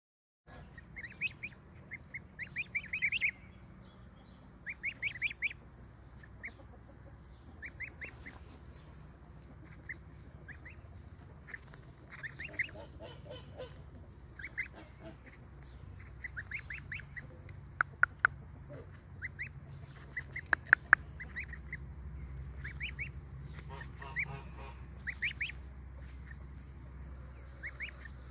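Ten-day-old goslings peeping: short, high, rising peeps in quick runs, on and off throughout. A few sharp clicks come in the second half.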